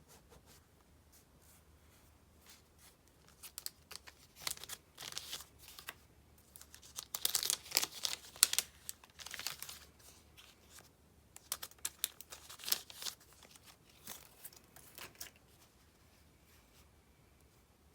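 Stickers being peeled off their backing sheet and handled, with short crinkly tearing rustles in several bunches. The loudest bunch comes in the middle.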